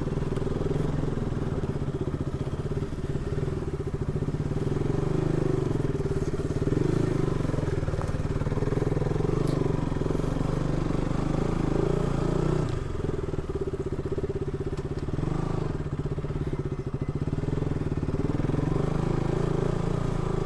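Single-cylinder motorcycle engine running under way on a rough track, heard from the rider's helmet, with a brief drop in engine sound about two-thirds of the way through, as at a throttle lift or gear change.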